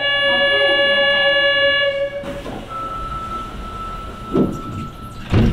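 Sapporo Municipal Subway Tozai Line train: a steady electronic signal tone for about two seconds, then the train running, with a faint steady whine and two dull thumps near the end.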